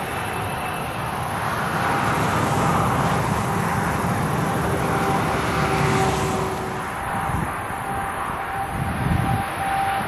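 Steady rumble of distant road traffic with a thin steady whine through it, the electric train that has just passed fading away along the line during the first seconds.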